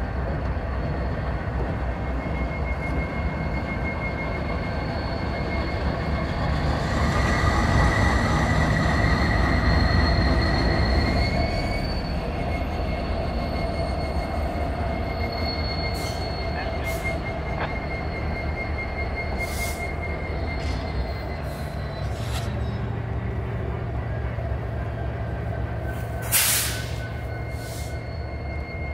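Norfolk Southern diesel locomotives running slowly past, with steady engine rumble and a continuous high wheel squeal, loudest as the units pass close about seven to eleven seconds in. Several short sharp noises come in the second half, the loudest near the end.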